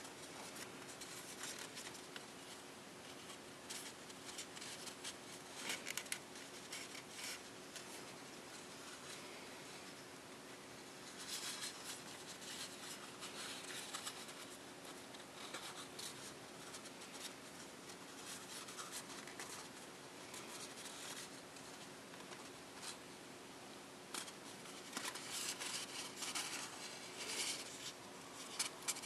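Printed copy paper rustling and crinkling as fingers fold and crease it, in short irregular scrapes and crackles, busier about a third of the way in and again near the end, over a faint steady hum.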